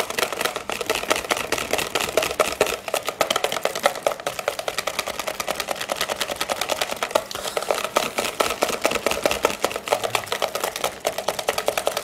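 Wire hand whisk beating pastry cream into warm melted gelatin in a plastic bowl: a rapid, steady clatter of the wires striking and scraping the bowl.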